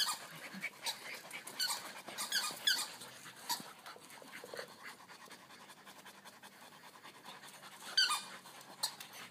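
Rottweiler puppy panting on a walk, with short bursts of high squeaking around two seconds in and again near the end.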